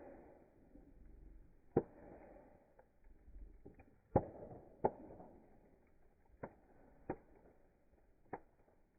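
Wood fire crackling: sharp, irregular pops about once a second, some louder than others, over a faint soft hiss.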